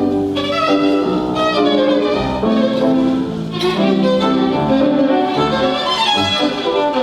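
Violin playing a classical melody, with lower sustained notes beneath it.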